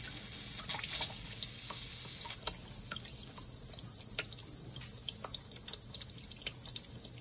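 Water spraying from an opened bleed valve on a hydronic Sunrad radiator into a plastic bucket: a steady hiss with many scattered splashes and drips. The radiator is being bled to clear the blockage that has kept it cold.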